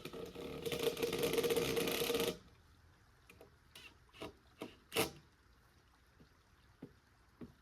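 Cordless power driver running a screw into wood, a fast buzzing rattle that stops abruptly about two seconds in. A few light knocks and clicks follow as boards and the tool are handled.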